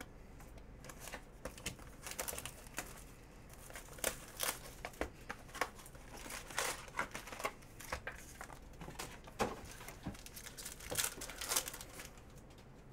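A trading-card hobby box and its packs being opened by hand: wrappers and a foil card pack crinkling and tearing in an irregular string of crackles.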